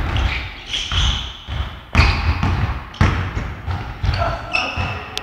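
Basketball being dribbled on a court floor, bouncing about twice a second, with a few short high squeaks of sneakers on the floor.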